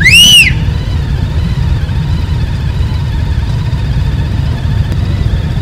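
A line of motorcycles idling together, making a steady low rumble. Right at the start, a short high whistle-like tone rises and falls within about half a second, louder than the engines.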